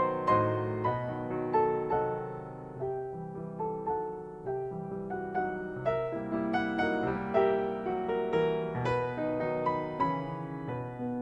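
Background piano music: a slow, gentle piece of struck notes over held low chords.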